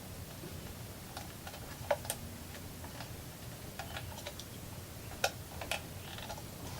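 Light, scattered clicks and ticks of small plastic and metal parts: wires being fitted into a sprinkler controller's push-lock terminal block with a small flathead screwdriver. The sharpest clicks come about two seconds in and again just past five seconds.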